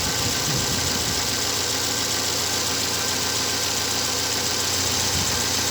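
Car engine idling steadily, heard up close under the open bonnet. This is an idle being checked for fault P0507, idle speed higher than expected, after the throttle-plate stop bolt was backed off.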